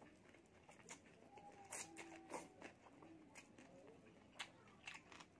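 Faint close-up eating sounds of spicy noodle soup: slurping noodles and broth, with sharp wet mouth clicks and smacks. A few louder clicks come about two seconds in and again near the end.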